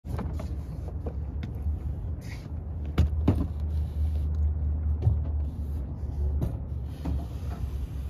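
Rope being hauled hand over hand up through a metal roof hatch, with a few sharp knocks and clicks, the loudest about three seconds in, over a steady low rumble.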